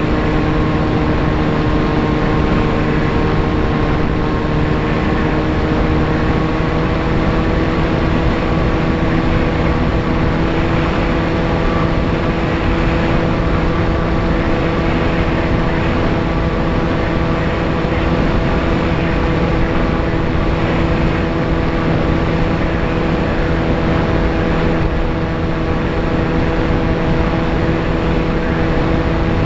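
VAS Chimera FPV plane's motor and propeller heard from the onboard camera in flight: a steady whine whose pitch creeps up slightly over the first several seconds, under a constant rush of wind.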